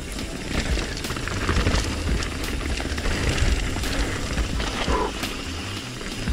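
Full-suspension mountain bike (Trek Remedy 9.7) rattling down a rocky, loose trail: tyres on rock and the bike's chain and frame give a stream of sharp knocks over a steady rumble of wind and rolling noise.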